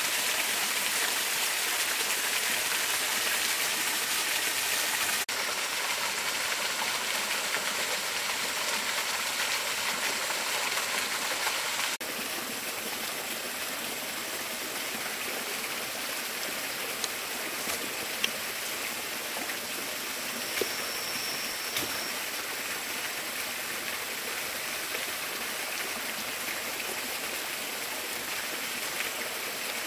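Steady rushing of a waterfall and stream water, its level stepping down slightly twice, with a few faint clicks in the second half.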